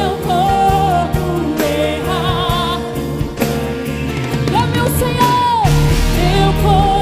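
Live gospel worship music: a woman singing held, wavering melody lines over a full band.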